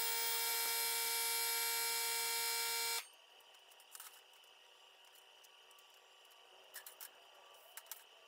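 A steady, high buzzing tone lasts about three seconds and cuts off suddenly. Then a faint high whine runs on, with a few light metallic clicks as sheet metal and a steel rule are handled.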